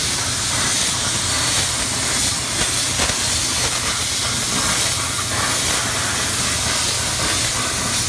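BurnTables CNC plasma table torch cutting steel sheet: the steady, loud hiss of the plasma arc and cutting air, over a low steady hum.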